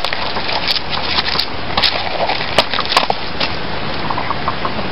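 A scattered series of sharp snaps and cracks as a banana heart is hacked from its fibrous stalk with a large knife and its tough bracts are broken off over dry leaf litter.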